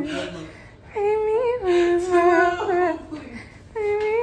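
A woman's voice singing a slow, wordless tune in long held notes with a slight waver. It pauses about three seconds in and starts again near the end.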